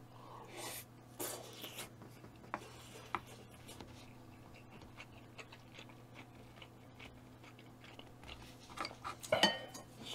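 Eating at the table: scattered light clicks of a spoon against a bowl, with soft chewing and mouth sounds, and a louder ringing clink of spoon on bowl near the end.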